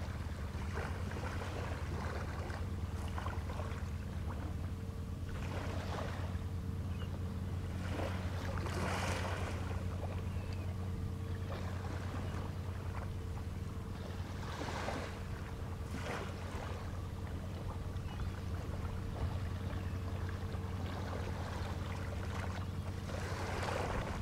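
Steady low hum of a boat's Suzuki 200 outboard motor idling, with a faint steady tone above it. A few brief hissy swells of wind or water noise come and go over it.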